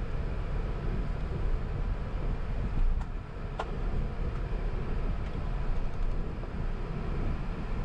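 Airbus A380 cabin noise while taxiing after landing: a steady low rumble, with a couple of sharp clicks about three seconds in.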